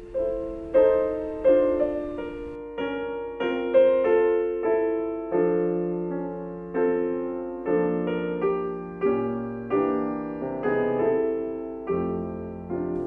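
Background music: a solo piano plays a calm piece, with notes and chords struck in an even, unhurried rhythm, each dying away.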